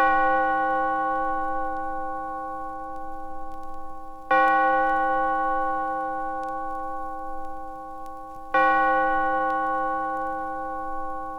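A bell struck three times, about four seconds apart; each stroke rings on with several tones and fades slowly, with a slight wavering in loudness, as in a bell tolling.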